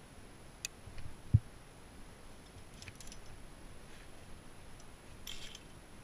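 Metal carabiners and climbing protection clicking and clinking as they are handled and unclipped to clean gear from the crack, with a short jangle of metal near the end. A single dull thump about a second in is the loudest sound.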